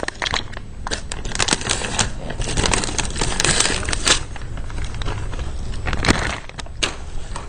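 Packaging being handled: a run of crinkling and rustling with many small clicks and knocks as a cordless impact driver is unwrapped from its bag.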